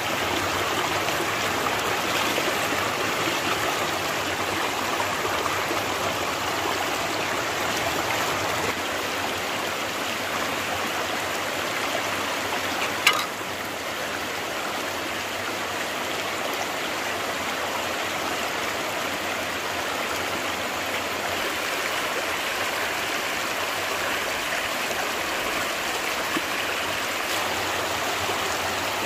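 Stream water flowing and rushing steadily, with one short sharp click about halfway through.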